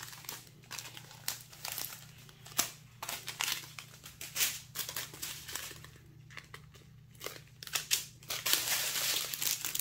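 Small plastic zip bags of diamond-painting drills crinkling as they are handled, with snips of large scissors cutting the strip of bags apart. The sound is a run of irregular crackles and clicks.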